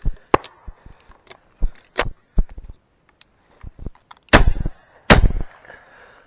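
Shotgun fire at passing ducks: two very loud shots in quick succession about four seconds in, less than a second apart, after several fainter sharp cracks and knocks.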